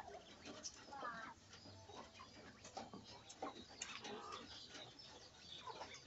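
Caged laying quail calling faintly with short, soft chirps and clucks, with scattered small taps and rustles as they move about.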